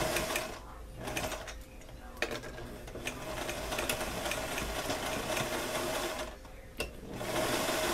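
Domestic electric sewing machine with a zipper foot stitching through a fabric neck band in short runs: a brief run, a pause, a longer run of about four seconds, then a pause with a single click before it starts stitching again near the end.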